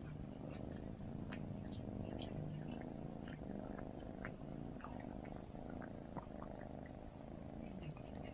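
Cat purring steadily, with small faint clicks of a Maine Coon's tongue as it licks and grooms a Cornish Rex kitten's head.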